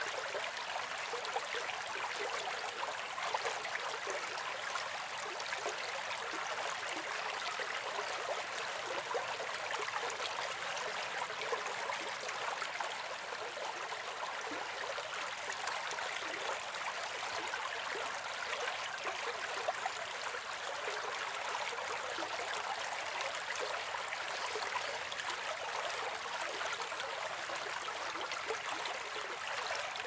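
A stream flowing steadily: an even rush of babbling water with no low rumble.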